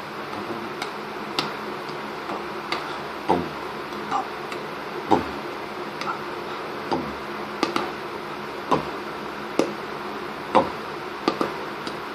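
Steady hiss with light knocks or clicks at uneven intervals, roughly one a second, several of them dropping quickly in pitch.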